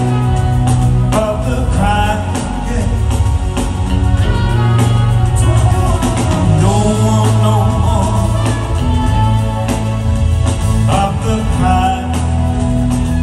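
Live band playing with a sung lead vocal: drums, bass, guitars and keyboards under a melodic singing line.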